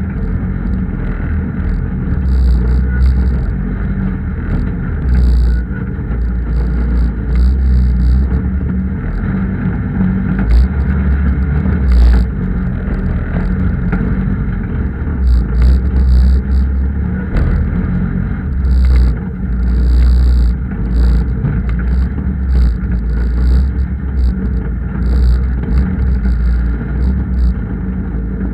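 Land Rover's 300Tdi four-cylinder turbodiesel engine running under load as the vehicle crawls over rocks, with a heavy low rumble that swells and eases. Frequent short knocks and rattles from the rocks and the chassis come through alongside it.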